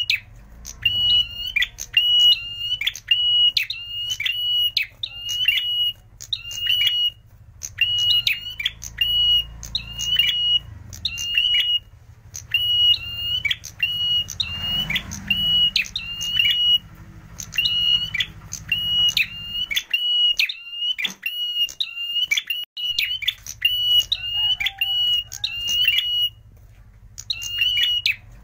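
Ashy tailorbird (prenjak merah) singing: a loud, shrill note repeated about twice a second in long runs, with a short pause near the end.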